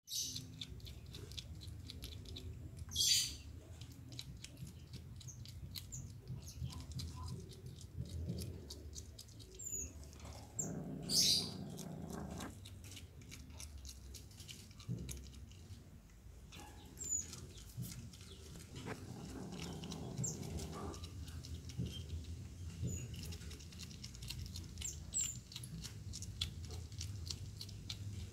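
Mongoose chewing and tearing at a chick carcass: a run of small wet clicks and crunches, with two louder sharp sounds a few seconds in and about eleven seconds in.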